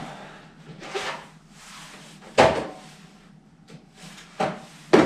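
A few separate clunks and knocks of things being handled and set down, the loudest about two and a half seconds in, with two more near the end.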